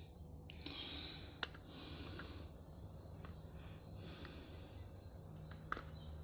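Faint handling of a plastic gimbal and selfie-stick unit as it is put together: light rustling, with two sharp clicks, one about a second and a half in and one near the end.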